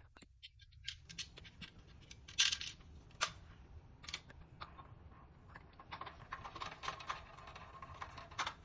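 Scattered clicks, taps and light metallic clinks of hand work with small parts and tools while fitting a fire alarm pull station, turning into a busier run of clicking and rustling about six seconds in.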